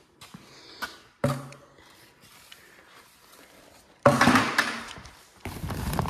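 Rustling and crinkling as the plastic cover and woven bulk bag of worm castings are pulled open, with a sharp thump about a second in and a loud burst of rustling about four seconds in. Near the end a plastic bowl scrapes into the castings.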